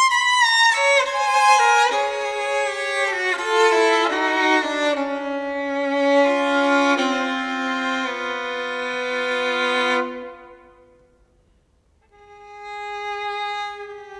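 Violin playing a slow, bowed melody that steps downward through sustained notes and dies away about ten seconds in; after a brief pause a new phrase begins on a long held note.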